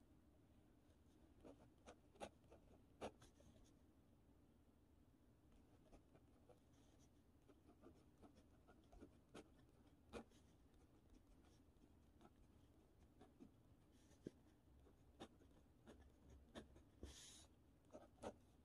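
Pen writing on lined notebook paper, heard faintly: scattered small ticks and light scratches of the tip, with a longer scratchy stroke near the end.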